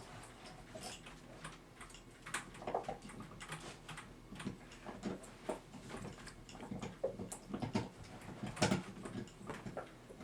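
Irregular light clicks and taps as a steel clock mainspring is worked by hand to spread grease along its coils on a plastic sheet.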